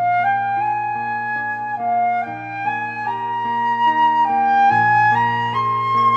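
Background music: a slow melody of held notes, rising step by step, over sustained low accompanying notes.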